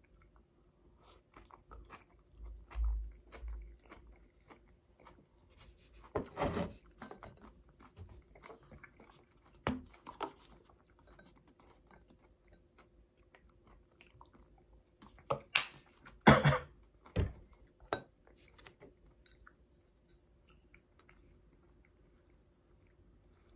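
Close-up chewing of boiled okra and molokheiya eaten with chopsticks: soft wet chewing and mouth sounds with many small clicks. A few louder handling noises come about a quarter, a third and two-thirds of the way through.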